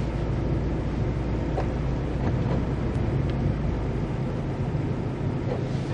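A motor vehicle on the move: its engine runs at a steady pace under road and wind noise.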